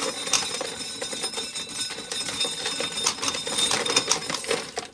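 Corn sheller at work, a dense, continuous rattling clatter of ears and kernels going through the mechanism, dying away just before the end.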